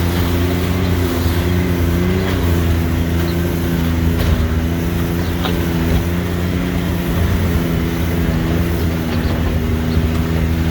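Off-road vehicle engine running at a steady trail speed, its pitch holding level apart from a slight wobble about two seconds in. A few light clicks or rattles sound over the middle.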